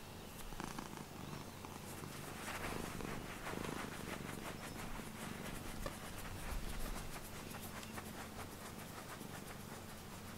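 A seal-point Siamese-type cat purring steadily while being stroked on the head and chin. The purr's fast pulses are plainest from about four seconds in.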